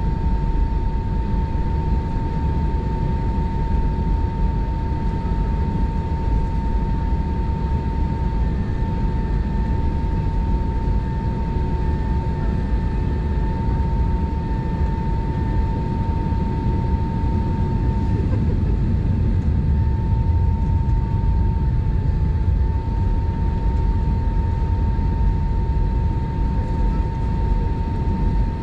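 Airbus A320 taxiing on one IAE V2500 engine, heard inside the cabin: a steady rumble with a steady high hum over it.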